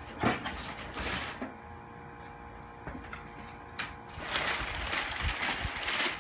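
A cardboard shipping box being opened and handled. There are a few knocks and scrapes, then a longer stretch of rustling and scraping from about four seconds in.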